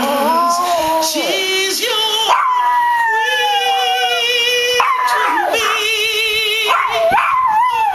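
Yorkshire terrier howling along to a song, with long drawn-out howls, one sliding downward in pitch about two seconds in, over the song's singing.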